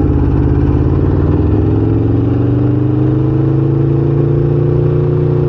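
Motorcycle engine running under load, its pitch rising slowly as the bike gains speed, then holding steady near the end.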